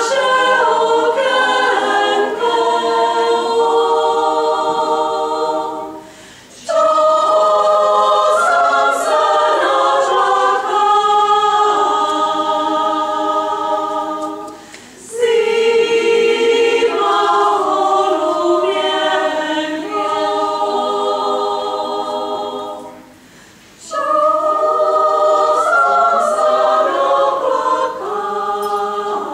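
Amateur choir, mostly women's voices, singing a Czech folk song a cappella in several parts. The singing comes in long phrases with three brief breaks between them.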